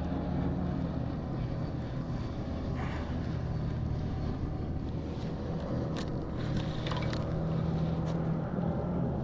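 Steady low drone of a boat motor, with a few brief clicks or splashes over it.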